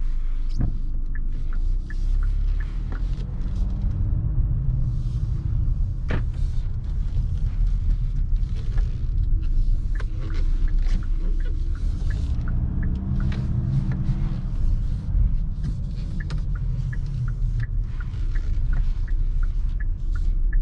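Kia Sorento's 2.2 CRDi diesel engine and road noise while driving: a steady low rumble whose engine note rises and falls twice as the car accelerates. Runs of light, regular ticks come near the start and again near the end.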